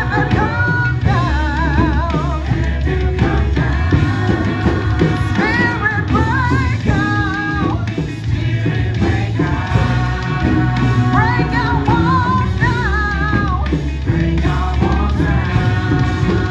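Gospel worship song: a singer's voice in long, wavering phrases over a band with a strong, steady bass.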